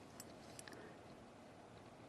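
Near silence: room tone, with a few faint small clicks in the first second.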